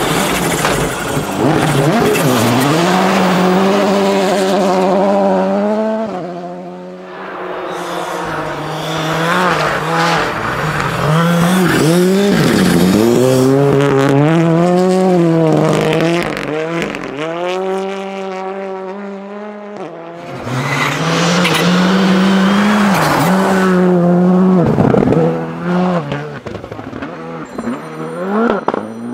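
Rally cars, among them a Volkswagen Polo R5 and a Ford Fiesta R5, driving hard on a snow stage one after another. Their turbocharged four-cylinder engines rev high, and the pitch climbs and drops again and again as they change gear and pass by.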